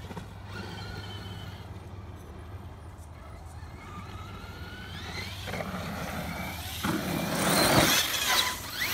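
Electric motor of a large 1/7-scale RC monster truck whining, rising in pitch as it accelerates about five seconds in. Then a louder rush of tyres churning loose dirt as the truck launches off a jump near the end.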